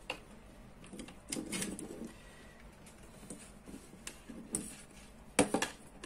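Light handling noise of a plastic bulb socket and its wires being worked by hand: scattered small clicks and rustles, with a sharp double click about five and a half seconds in.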